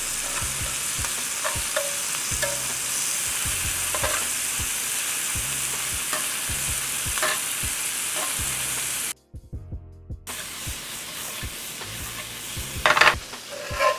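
Shrimp sizzling in butter in a hot skillet, a steady hiss with light clicks of metal tongs as they are turned. The sizzle cuts out for about a second two-thirds of the way through, then comes back quieter, with a few sharper knocks near the end.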